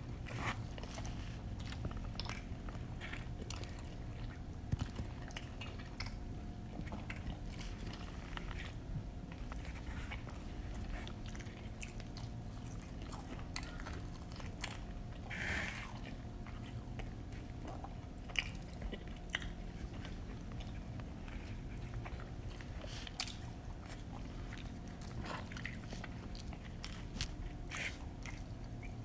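Close-miked eating sounds of pizza being bitten and chewed: many small irregular crunches, smacks and clicks over a faint steady hum, with one louder sound about halfway through.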